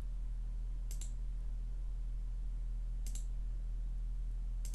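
Computer mouse clicking, three or four sharp clicks a second or two apart, over a steady low electrical hum.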